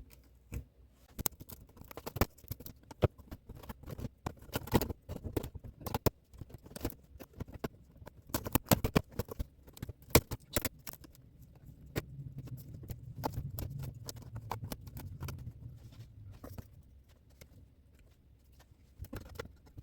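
Irregular light clicks, taps and scrapes of hand work at an interior trailer wall, with a low hum for a few seconds past the middle.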